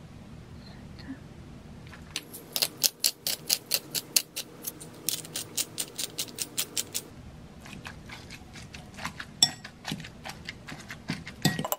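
A pepper grinder being twisted, a run of rapid ratcheting clicks at about four a second, from about two seconds in until about seven. Then metal utensils clink and scrape against a glass bowl as boiled egg and mayonnaise are mashed together.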